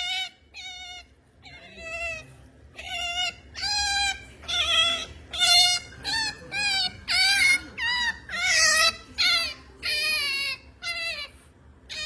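A pet otter making the high-pitched, whining pampering noise of an otter wanting attention: a string of short, wavering squealing calls, about one a second and sometimes two close together.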